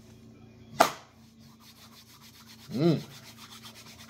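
Palms rubbed briskly together, a fast, even swishing of skin on skin that grows louder toward the end: hands being warmed up. A little under a second in there is one sharp snap, the loudest sound, and near three seconds a short hum from a man's voice.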